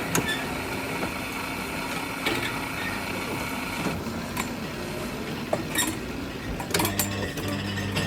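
Espresso machine at work: a steady mechanical noise with scattered clicks and clinks, and a low steady hum that comes in about seven seconds in.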